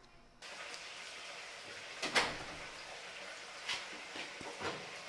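A soccer ball being kicked on grass: a few short thumps over a steady outdoor hiss, the loudest about two seconds in and two softer ones later.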